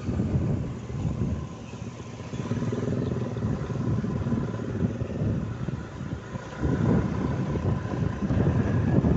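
Motor scooter riding along a road, heard from the rider's seat: engine running under a low, gusty wind rumble on the microphone, with a faint steady whine. It eases off briefly twice.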